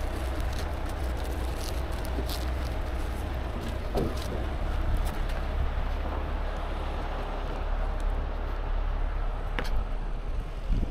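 Heavy rotator tow truck's diesel engine running steadily as a low rumble, with a few light clicks and knocks over it.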